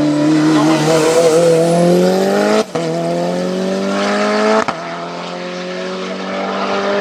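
Mitsubishi Lancer hill-climb prototype's engine at full throttle, its pitch climbing, with two sharp upshifts: brief cuts about two and a half and four and a half seconds in, each dropping the pitch. After the second shift it runs on steadier and a little quieter.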